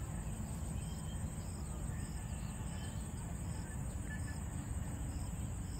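Insects chirping in a steady pulsing rhythm, about two pulses a second, with a constant high buzz, over a low steady rumble.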